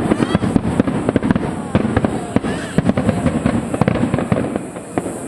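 Japanese star mine fireworks barrage: rapid volleys of shell bursts and crackle packed closely together, thinning out over the last second or so, with a few faint whistles.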